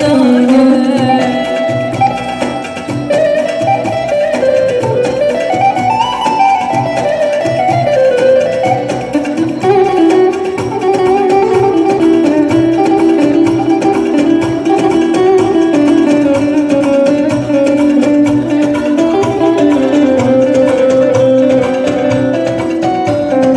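Instrumental break of a Turkish folk song played live on a Korg keyboard: a plucked-string, saz-like melody that winds up and down over a steady beat.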